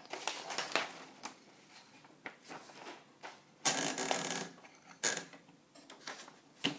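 A sheet of paper being handled and fed into an Underwood 319 manual typewriter: paper rustling and sliding against the platen, with a few sharp mechanical clicks from the typewriter's parts. The longest and loudest rustle comes a little under four seconds in.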